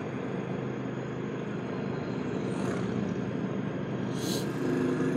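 Royal Enfield Classic 350's single-cylinder engine running on the ride, with wind noise, heard through a mic inside the rider's helmet. A short hiss comes about four seconds in, and near the end the engine note steadies and gets a little louder.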